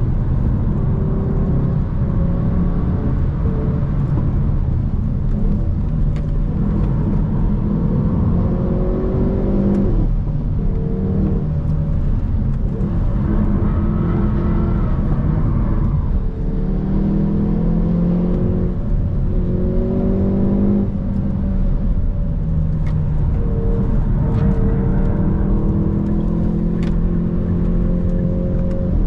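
Hyundai i30 N's 2.0-litre turbocharged four-cylinder engine pulling hard at track pace, its pitch climbing through the revs and dropping at each gear change or lift, several times over, with a few short sharp clicks.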